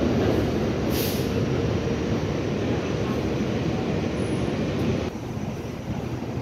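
New York City subway train running away along the elevated steel structure: a steady rumble of wheels on rails that fades, dropping noticeably about five seconds in.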